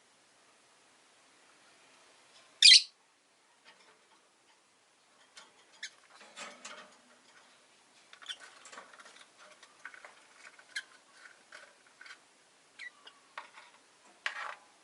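Rosy-faced lovebirds in a cage: one loud, sharp high call about three seconds in, then a run of short chirps and light clicks, with another strong call near the end.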